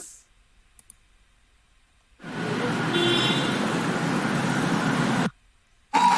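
A library sound effect being previewed: steady road-traffic noise with a few faint tones, lasting about three seconds and cutting off abruptly. Two small clicks come before it, likely the editor's mouse clicks.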